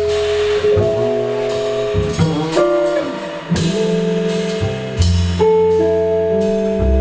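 A jazz trio playing live: guitar melody over a low sustained line, with drum-kit and cymbal strokes keeping time.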